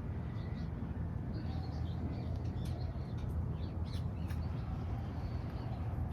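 Small birds chirping and calling in short curved notes scattered throughout, over a steady low rumble.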